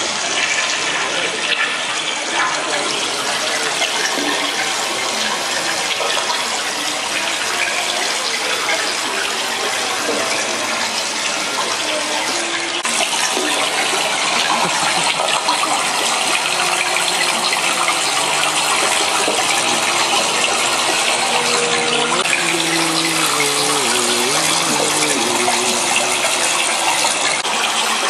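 Steady rushing, gushing water sound running loud and unbroken. Faint pitched tones come in over it during the second half.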